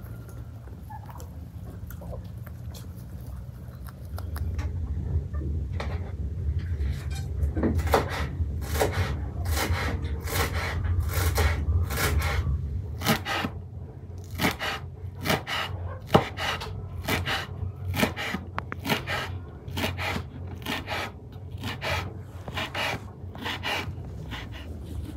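Repeated scraping strokes, about two a second, beginning a few seconds in, over a low rumble that fades about halfway through.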